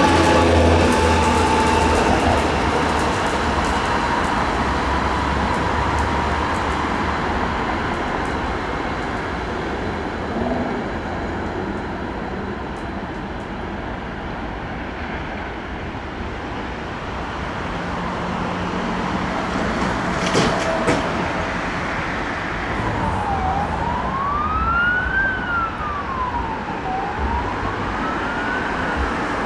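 Steady traffic rumble, with a sharp clack about two-thirds of the way in. Then an emergency vehicle's wail siren starts up, its pitch sweeping slowly up and down about once every three seconds.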